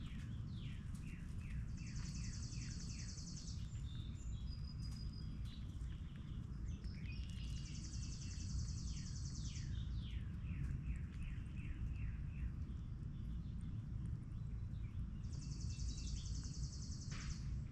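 Wild songbirds singing: a high, rapid trill about two seconds long, heard three times, and runs of short falling notes a few a second, over a steady low rumble of background noise.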